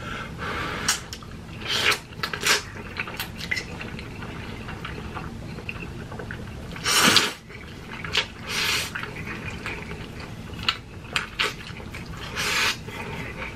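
Spicy instant ramen noodles being slurped and chewed: a string of short wet slurps, with one longer, louder slurp about seven seconds in.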